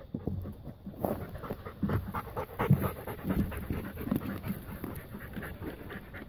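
A dog panting close to the microphone, starting about a second in.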